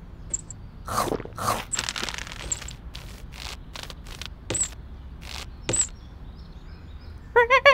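Cartoon sound effects: a handful of short swishing, rustling hits, each sudden and spaced out, then a quick run of high squeaky chirps near the end.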